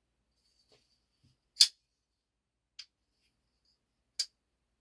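Oz Machine Company Roosevelt folding knife's blade being cycled open and shut: three sharp clicks, the loudest about a second and a half in, a faint one a little after, and a last one near the end.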